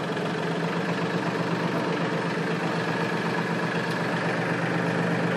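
Mahindra 1526 compact tractor's diesel engine running steadily at low revs as the tractor creeps forward.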